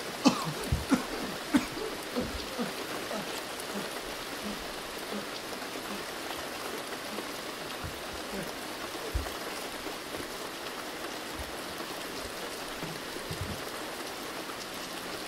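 Steady rain-like hiss, with a few dull thumps in the first two seconds and two more later on.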